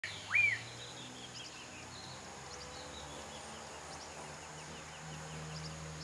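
Wild birdsong ambience. One loud whistled bird note sweeps up and falls back right at the start, then many faint, short, high chirps sound over a steady high hiss.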